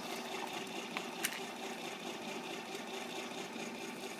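Krups electric ice cream maker running, its motor turning the paddle through thickened ice cream in the frozen bowl: a steady hum with a few even tones, and two light ticks about a second in.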